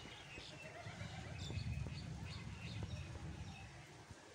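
Small birds chirping in short calls during the first three seconds or so, over low, uneven background noise.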